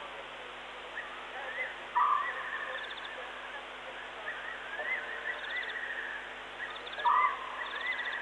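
Night-time bush chorus of animal calls: a string of short chirping whistles that rise and fall in pitch, repeated over and over, with a louder short call about two seconds in and again near the end, over a steady hiss.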